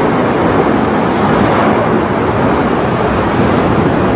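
Large chemical-plant fire burning with a steady, loud rushing noise, even throughout, with no separate bangs or blasts.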